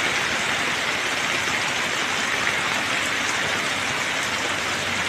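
Heavy rain pouring steadily onto trees and a wet paved road, an even hiss.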